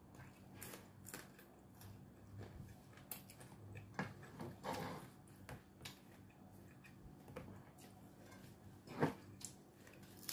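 Faint mouth sounds of a person chewing raw red chili peppers, with scattered small clicks and one sharp click about nine seconds in.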